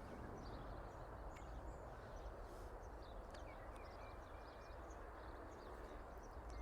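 Faint outdoor ambience: a steady low background hum with small birds chirping now and then.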